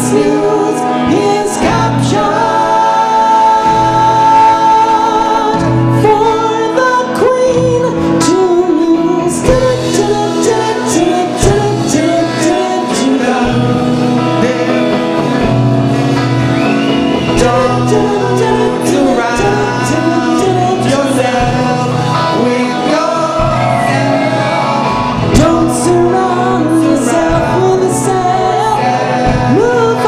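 Live band playing a soul number: a male lead singer with backing singers over Hammond organ, electric guitar, bass guitar and drums.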